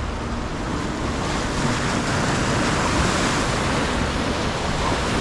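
Ocean surf washing ashore, a steady rush that swells a little midway, with wind buffeting the microphone.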